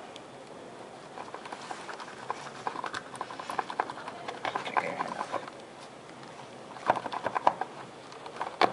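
Small metal clicks and scrapes of dissecting scissors and forceps working at a turtle's shell and skin, in quick irregular runs, with a louder cluster of clicks about seven seconds in.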